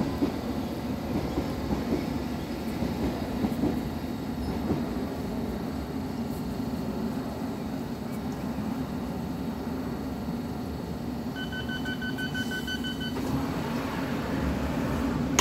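London Underground District Line train standing at a platform with its doors open, a steady hum coming from the train. About eleven seconds in, the door-closing warning sounds as a quick run of beeps for under two seconds, and the sliding doors thump shut at the very end.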